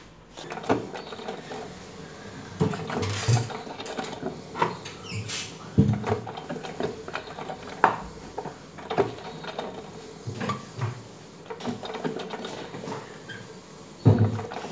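Irregular knocks, taps and rustles of objects being handled on a kitchen counter, with a drinking glass set down on the countertop about eight seconds in, over a faint steady hum.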